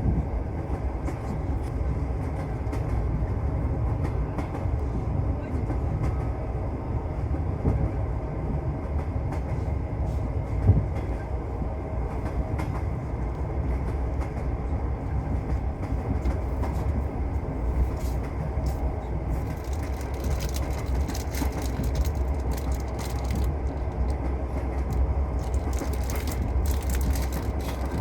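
Passenger train running, heard from inside the carriage: a steady low rumble of wheels on the rails. There is a single knock about ten seconds in, and a crackling hiss joins the rumble in the second half.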